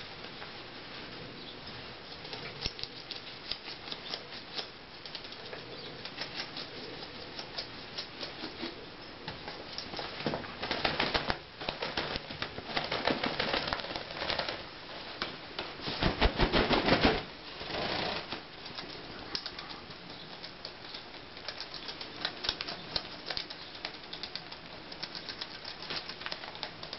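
A young duck preening her wet feathers: a fast run of small clicks and rustles as her bill works through the plumage, broken by several louder bursts of feather rustling, the loudest about halfway through and lasting about a second.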